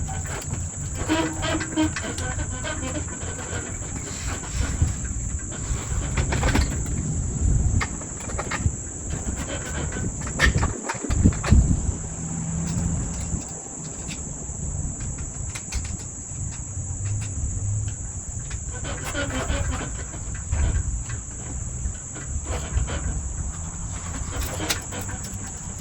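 A steady, high-pitched insect chorus, like crickets, runs throughout, over low rumble and scattered knocks and clicks.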